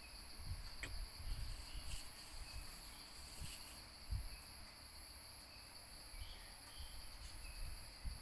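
A steady, high-pitched chorus of insects, with a few soft knocks and thumps from a kitten batting at a bamboo stick on wooden floorboards; the loudest knock comes about four seconds in.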